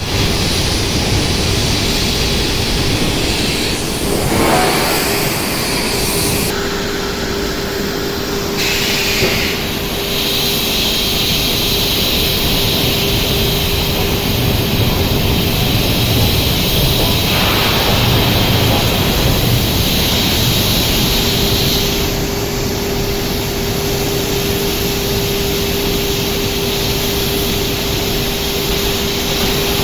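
Steady industrial noise at a billet reheating furnace: a continuous rushing roar with a steady hum, changing in character several times as the furnace's charging door machinery operates.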